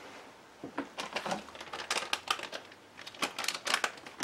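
Cardboard box of dry fish-fry breading mix being handled and opened over a bowl: a quick, irregular run of small clicks, crackles and rustles starting about half a second in.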